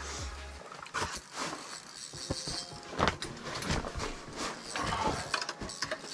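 Ice-fishing reel being worked by hand, its gears and ratchet clicking in irregular bursts.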